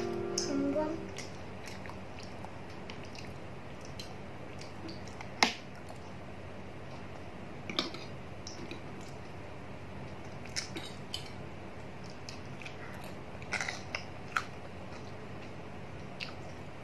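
A child eating spaghetti: scattered taps of a metal fork and spoon against a plastic plate, with soft chewing in between. The loudest tap comes about five and a half seconds in.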